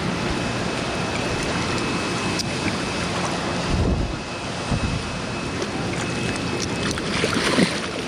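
Steady rush of river water with some wind on the microphone; a salmon thrashing in a landing net throws up loud splashes near the end.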